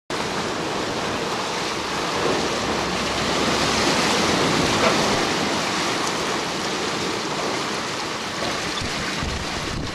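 Strong trade wind buffeting the microphone over the rush of breaking seas along a sailing yacht's hull, as a steady loud noise of wind and water. It cuts in suddenly at the start.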